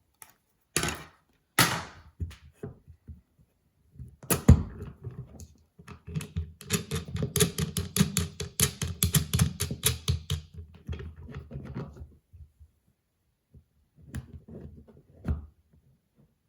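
Spyderco medium bench stone being worked out of its tight-fitting case: a few knocks, a hard thump about four seconds in, then a quick run of clattering taps for about four seconds, with a few more knocks near the end.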